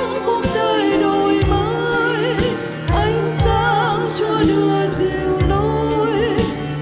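Choir singing a Vietnamese hymn over instrumental accompaniment with a steady beat; the voices hold notes with vibrato.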